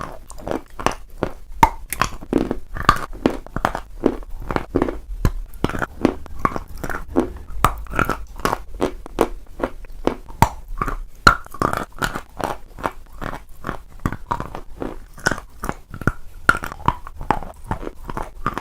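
Close-up chewing of crunchy eating chalk, with rapid crisp crunches several times a second and wet mouth sounds between them.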